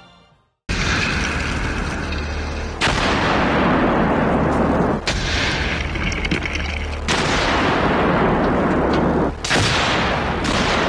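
A series of loud explosions, about six back to back. Each starts with a sudden blast and is followed by a sustained rushing roar.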